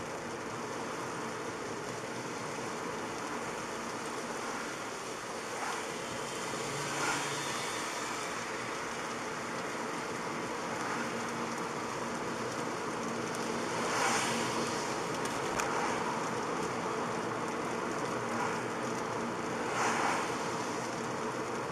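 Steady road noise from a car driving on a wet road, heard from inside the cabin: tyre hiss on wet asphalt with a few brief swells, one as a truck passes alongside near the end.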